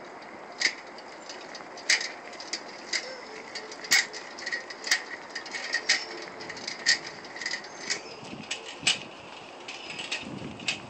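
Small red metal tricycle rolling and being pedalled on a concrete sidewalk, giving a short sharp metallic click about once a second.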